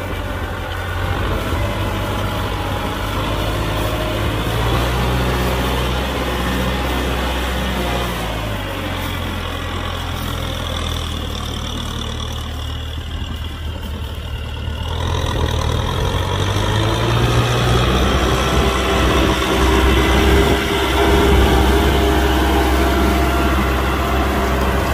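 Kubota M6040 tractor's four-cylinder diesel engine running under plowing load in mud. Its pitch sags about a third of the way in and climbs again past the middle, growing louder toward the end.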